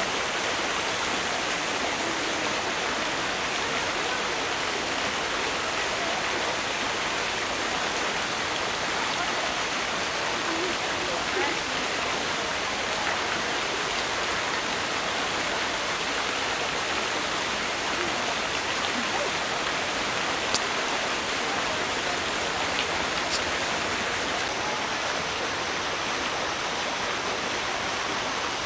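Steady rush and splash of water pouring from a rock waterfall into a pool, with two brief clicks in the second half.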